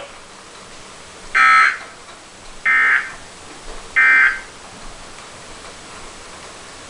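Weather radio alert data: three short bursts of warbling SAME digital code tones, a little over a second apart, over a steady faint hiss from the radio.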